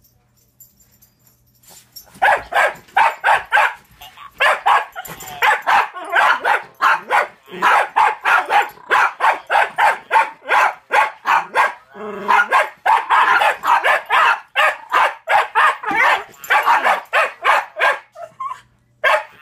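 A Jack Russell terrier barking rapidly and repeatedly at a Furby toy, about three barks a second, starting about two seconds in.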